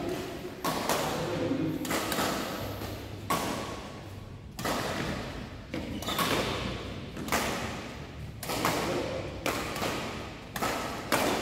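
Badminton rackets hitting shuttlecocks: an uneven series of sharp strikes, about one a second, each ringing on in the echo of a large sports hall.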